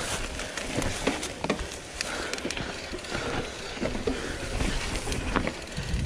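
2019 Giant Reign mountain bike ridden over a rough trail: a steady rumble of the tyres with irregular clicks and knocks as the bike rattles over bumps.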